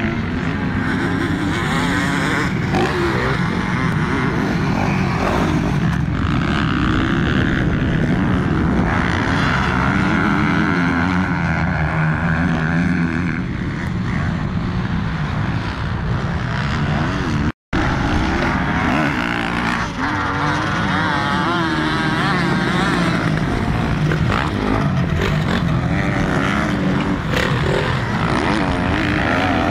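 Several motocross dirt bikes riding around a track, their engines revving up and down continuously as they accelerate and pass. The sound cuts out for a moment a little past halfway, then resumes.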